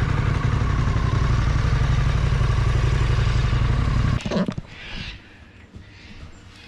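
Harley-Davidson Pan America's V-twin running at a steady cruise while being ridden, with wind rush. It cuts off abruptly about four seconds in, leaving quiet outdoor ambience.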